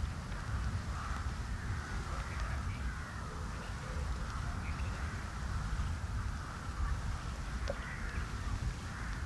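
Crows cawing, rough calls recurring several times, over a steady low rumble.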